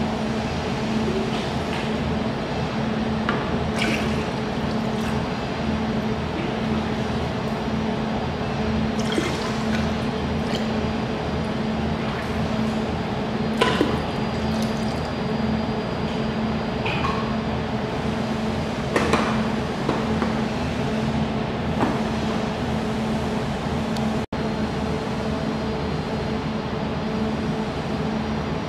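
Water poured from a container into the open reservoir of an industrial water chiller, running and splashing over the metal cooling coil inside, with irregular splashes. A steady machine hum runs underneath.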